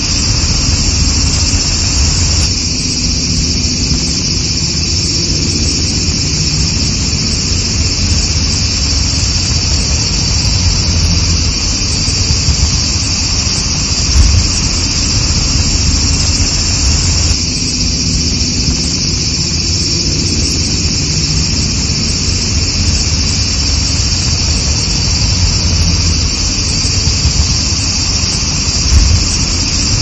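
Loud chorus of cicadas singing, a steady unbroken high-pitched drone. A low rumble runs underneath, with a couple of brief bumps about halfway through and near the end.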